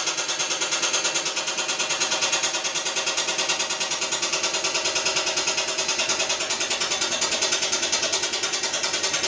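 Front-loading washing machine running: a steady motor hum with a fast, even pulsing, cutting off suddenly at the end.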